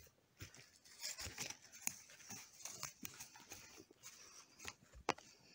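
Footsteps on dry pine needles and small twigs: irregular rustling and crunching with a few sharp snaps.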